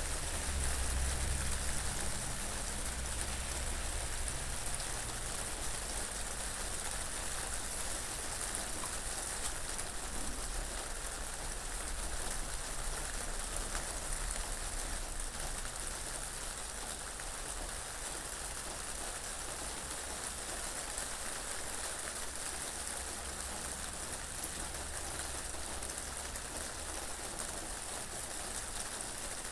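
Steady rain falling in an even hiss, with a low, gusting rumble of wind that is strongest near the start.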